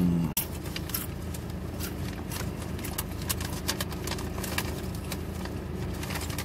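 Close-up crunching bites and chewing of a lettuce-filled chicken salad sandwich, heard as scattered crisp crackles, over a steady low engine-like hum in the car. A short voiced "mm" at the very start is the loudest sound.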